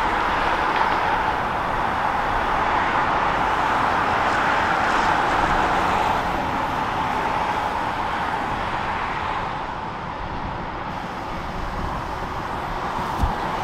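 Steady road traffic noise from cars on the highway beside the rail line, with one short knock near the end.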